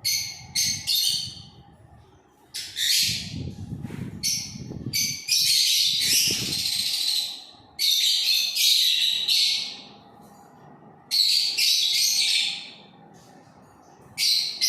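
A flock of lovebirds chattering shrilly in bursts of a second or two, with short pauses between them; the longest burst runs from about five to seven seconds in.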